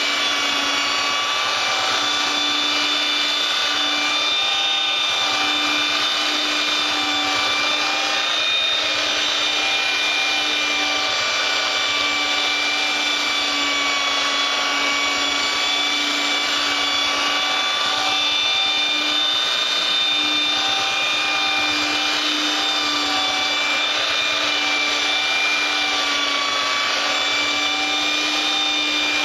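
Electric power sander running steadily against a wooden cutting board: a constant motor whine over an even sanding hiss.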